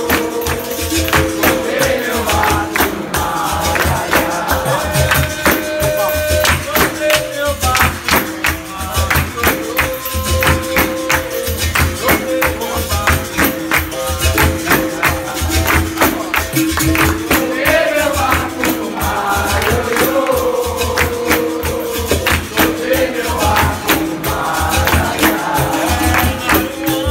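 Capoeira roda music: several berimbaus played together, their steel wires struck in a steady rhythm of repeated notes, with rattling percussion and voices singing at times.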